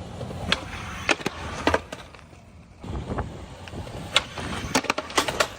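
Skateboard wheels rolling on concrete with several sharp clacks of the board, then a short quiet gap and a heavy low thump about three seconds in, followed by more rolling and a quick run of clacks near the end.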